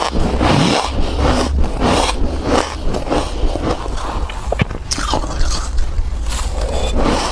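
Close-miked crunching of soft white ice being bitten and chewed: repeated gritty crunches and scrapes, with a few sharp cracks.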